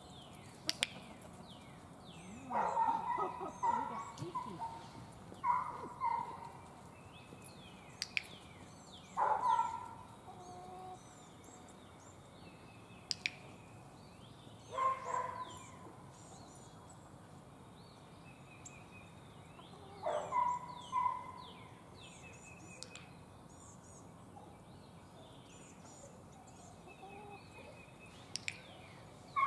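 Backyard chickens calling, a rooster among them: several loud calls of a second or so each, a few seconds apart. Small wild birds chirp quietly throughout.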